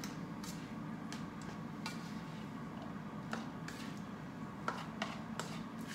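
Spoon scraping and knocking against a non-stick wok while rice is stirred and mixed, in short irregular strokes, over a steady low hum.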